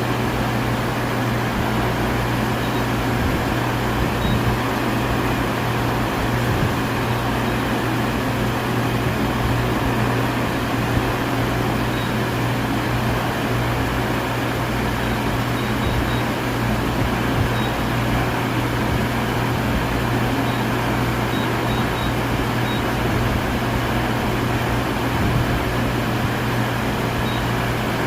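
Steady mechanical hum and hiss of a CNC milling machine running, with a constant low hum underneath and a few faint ticks.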